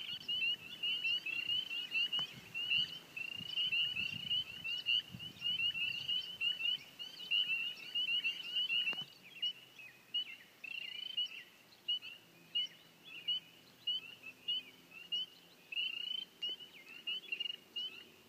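An outdoor animal chorus at dusk: many high, short chirping calls overlapping continuously, thinning slightly partway through.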